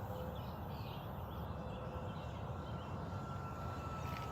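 Wind rumbling on the microphone, with the faint steady whine of a 3D-printed C-130 model airplane's electric motors flying at a distance, dipping slightly in pitch near the end. Faint bird chirps come through now and then.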